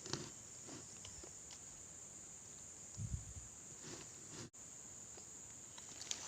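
Steady high-pitched chirring of insects, with a few faint ticks and a low thump about three seconds in.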